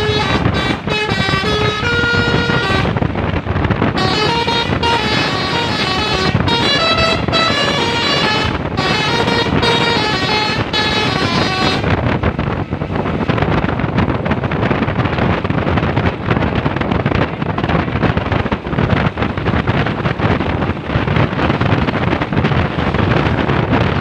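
Tour bus telolet multi-tone air horn playing an Indian-style tune in short stepped notes with brief gaps, for about the first half. It then stops, leaving a steady loud rumble of the bus driving by.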